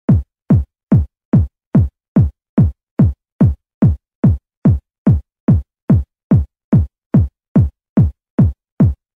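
A lone electronic kick drum from a 1990s techno track beats alone at a steady four-on-the-floor pulse, a little over two hits a second. Each hit is a deep thump that drops in pitch.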